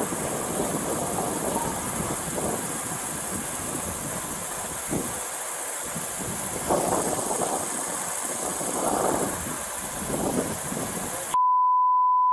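Body camera's steady hiss with a vehicle engine idling in the background. Near the end a single steady high beep about a second long, after which the sound cuts off to dead silence.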